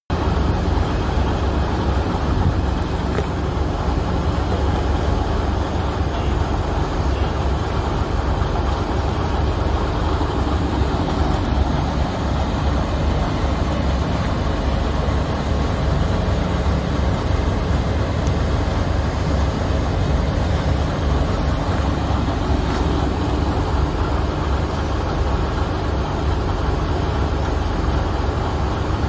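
Steady low rumble from a stopped freight train, typical of its diesel locomotives idling.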